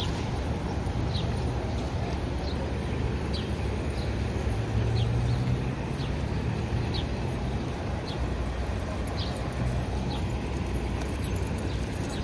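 City street traffic: a steady low rumble of passing vehicles, swelling as one goes by about five seconds in, with a scatter of faint, short, high clicks.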